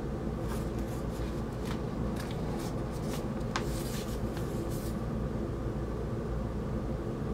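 A large glossy magazine being handled, its paper rustling and crinkling in short bursts during the first five seconds, over a steady low hum.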